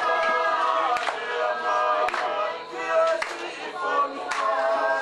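Group singing, several voices holding notes together, over a sharp beat struck about once a second.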